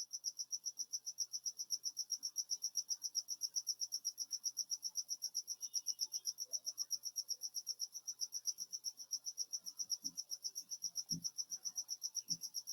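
A cricket chirping in the background: a high, fast and perfectly even pulsing trill that runs on without a break. A few faint knocks come near the end.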